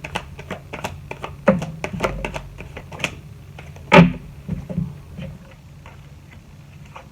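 Tarot cards being handled and laid on a table: a run of quick clicks and taps, with one louder knock about four seconds in, then a few softer taps.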